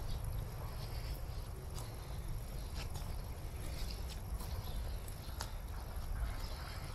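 Outdoor ambience: a low, steady rumble with scattered faint clicks and ticks.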